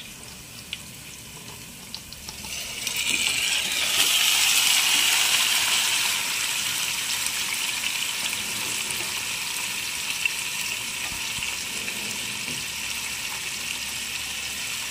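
Yogurt-marinated chicken sizzling as it goes into hot oil with fried onions in a metal pot. The sizzle starts suddenly about two and a half seconds in, is loudest over the next few seconds, then settles to a steady sizzle.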